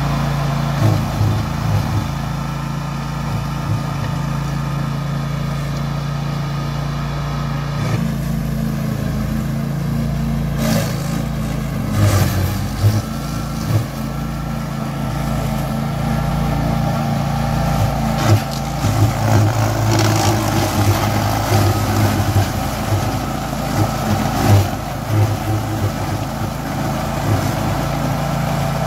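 Meccanica Benassi Fox 110 4WD ride-on brush mower running steadily under load as its cutting deck chops through dense brush. Irregular louder knocks and bursts come through as the blade hits thicker stems.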